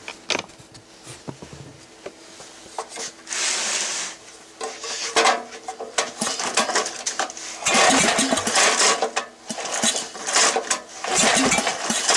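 Briggs & Stratton 11 hp single-cylinder engine turned over by hand with its recoil starter rope, in several slow pulls of about a second each. It cranks against its compression without firing, and the owner judges the compression to be quite strong.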